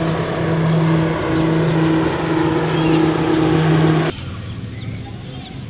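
A motor's steady drone, a low hum with overtones over a noisy rush, cutting off suddenly about four seconds in.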